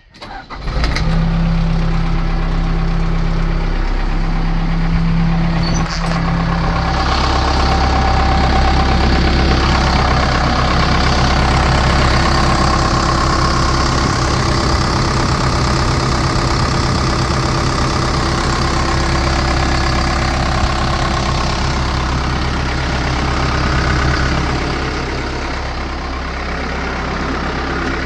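Case 580 Super L backhoe's four-cylinder diesel engine starting up within the first second and then running steadily.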